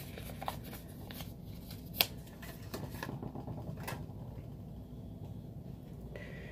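Small paper slips being handled and folded: light paper rustles and soft clicks, with one sharp click about two seconds in, then quieter handling in the second half.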